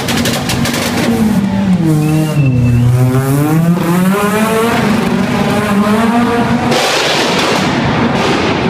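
Peugeot 206 engine held at high revs, dipping and then climbing again as the car pulls away down a concrete tunnel. Near the end a harsh rushing noise takes over.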